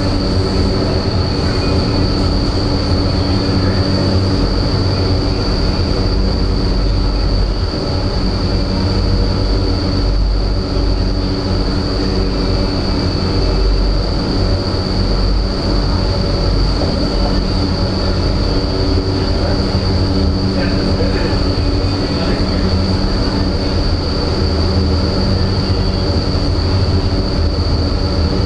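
Indoor vertical wind tunnel running at flying speed: a loud, steady rush of air over a deep fan rumble, with a low hum and a constant high-pitched whine.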